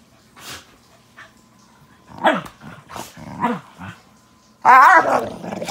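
Belgian Malinois and corgi play-fighting, with growling barks. There are short falling calls about two seconds in and again about three and a half seconds in, then a louder, longer wavering growl-bark near the end.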